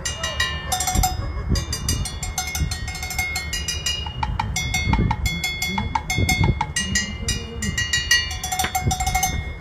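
Cowbell struck over and over in a quick, steady rhythm, each hit ringing briefly, with a short break about a second in.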